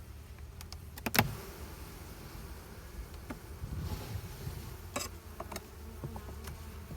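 Honeybees buzzing steadily around an opened hive, with a sharp knock about a second in and a smaller click near the end.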